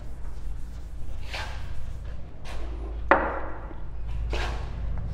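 Felt chalk duster wiping across a blackboard in a few separate short swishes, with one sharp knock about three seconds in.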